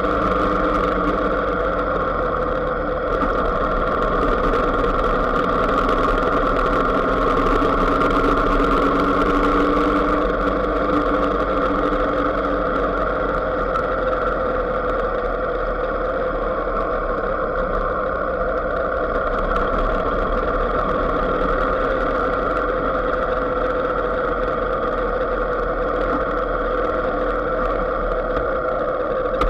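Vehicle engine running steadily at an even, low road speed, a constant hum that barely changes in pitch.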